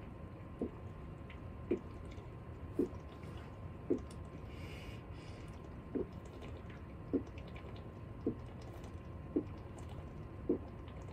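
A person gulping water while chugging a bottle, one swallow about every second, nine in all, with a slightly longer gap about halfway through.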